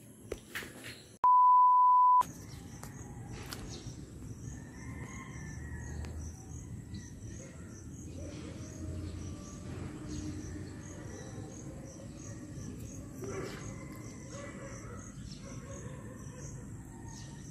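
A loud, steady electronic beep at one pitch, lasting about a second, starts about a second in. After it comes outdoor ambience: a low rumbling background with faint bird chirps and insect calls.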